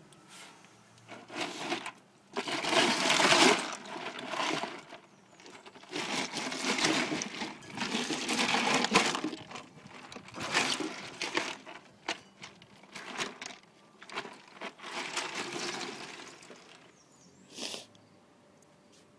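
Ice and meltwater sloshing and clattering in a cooler as a hand rummages through it, in a series of splashy bursts, with one short sharp knock near the end.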